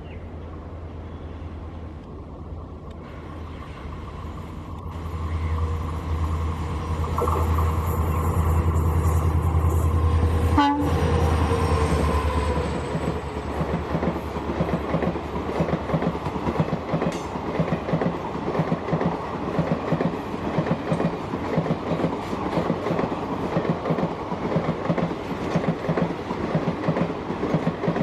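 EMD WDP4D diesel locomotive's 16-cylinder two-stroke engine rumbling louder as it approaches at speed, its horn sounding as it passes about ten seconds in with the pitch dropping. Then the ICF passenger coaches run past with a steady clickety-clack of wheels over rail joints.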